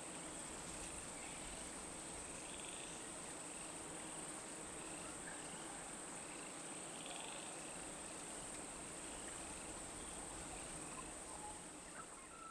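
Faint night-time insect chorus: a steady high-pitched drone with short cricket chirps repeating at a regular pace.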